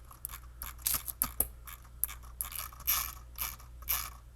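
Irregular small clicks, taps and brief rustles of stationery items and packaging being handled and set down on a table.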